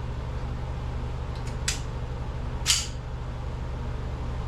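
Sharp snaps from a Springfield 1911 replica CO2 pistol during a magazine change: two close together about one and a half seconds in and a louder one shortly before three seconds. A steady low hum runs underneath.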